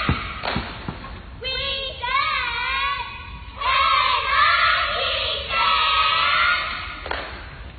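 A group of young girls chanting a cheer together in three phrases with short breaks between them, after a couple of thumps at the start.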